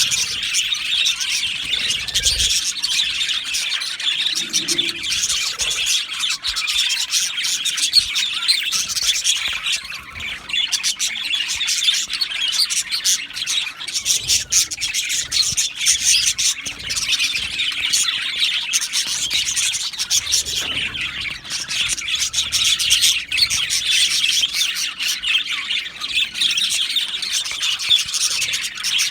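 A flock of budgerigars (budgies) chattering and chirping continuously, many calls overlapping, with occasional squawks.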